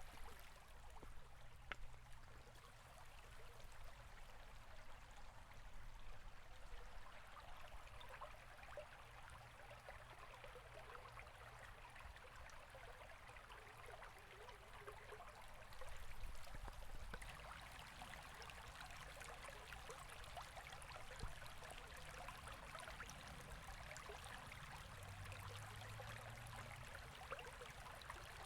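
River or stream water running steadily, a faint even rush with fine trickling and splashing.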